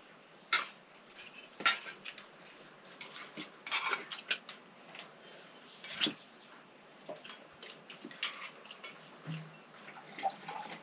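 Metal utensils and dishes clinking, in irregular sharp clinks a second or two apart.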